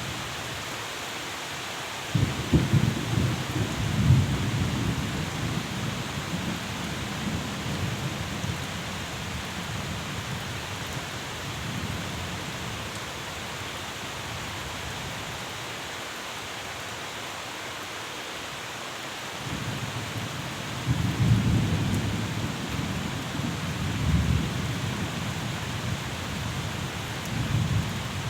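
Steady rain hissing, with two long rolls of thunder: one breaking about two seconds in and fading over several seconds, another building from about twenty seconds in and rumbling on to the end.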